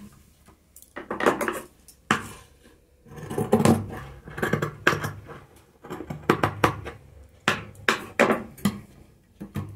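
Scissors snipping through folded knit fabric in a string of short, irregularly spaced snips, cutting a rounded edge.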